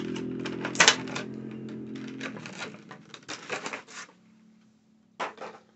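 Plastic packaging and a clear plastic figure stand clicking and clacking as they are handled, with one sharp click about a second in. A steady low hum runs underneath for the first two seconds or so.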